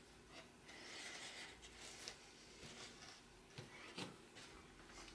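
Faint rubbing and sliding of a thin wooden board being shifted into place by hand on a wooden workbench, with a couple of light knocks a little over halfway through.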